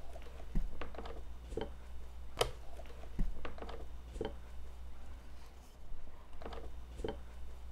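A wood chisel cutting into a wooden block in geometric chip carving: irregular sharp taps and clicks as a wooden mallet strikes the chisel and the blade splits out chips, about ten in all, over a steady low hum.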